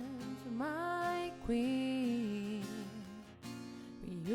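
Background music with held melody notes that slide between pitches.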